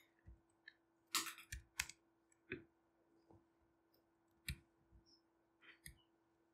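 Faint, irregular keystrokes on a computer keyboard: about a dozen separate clicks, a couple close together, as a password is typed at an SSH prompt and entered.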